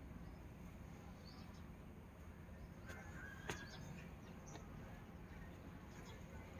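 Quiet outdoor background with a few faint bird chirps, and one sharp click about three and a half seconds in.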